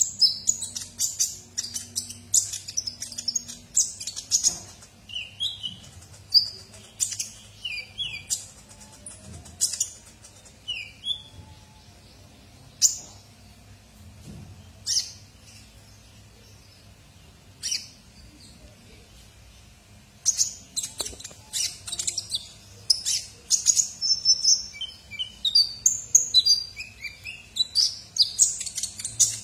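Male sunbird singing in a cage: bursts of rapid high-pitched chirps and twittering trills, thinning to a few single sharp notes in the middle, then a dense run of song over the last nine seconds.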